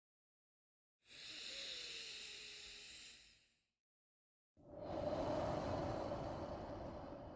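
Slow, deep human breathing for a paced breathing exercise: two long, airy breaths of about two and a half and three seconds, each fading out, with silence before and between them. The second breath is louder and fuller.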